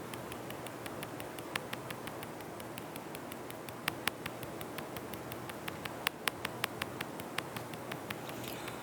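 Scattered light clicks and taps at an uneven pace over a steady background hiss.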